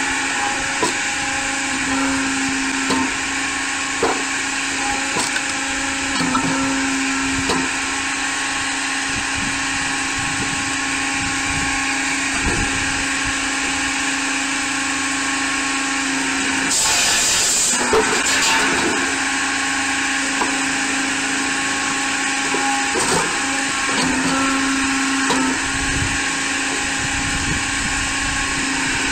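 Firewood processor running steadily with a constant mechanical hum and whine. Scattered knocks come from logs and split pieces moving through it, with a brief louder burst of noise a little past halfway.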